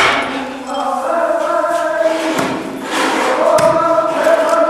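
Several voices singing together in long held notes, with a sharp knock right at the start and another about three and a half seconds in: an axe blade striking a log on a chopping block.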